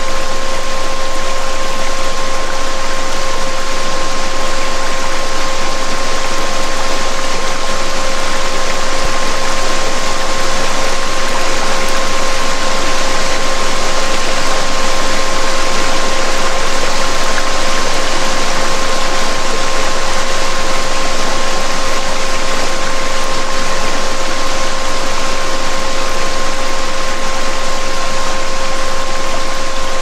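Steady rushing waterfall sound with a steady pure tone running through it, plus a second tone an octave higher: a 'DNA repair' healing frequency played over the water.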